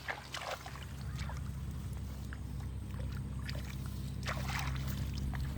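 A low, steady motor hum with water splashing and sloshing over it, the biggest splashes just after the start and about four seconds in.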